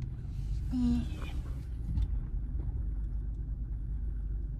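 Car engine and road rumble heard from inside the cabin, a low steady drone as the car creeps forward. A brief pitched sound, lasting about half a second, comes about a second in.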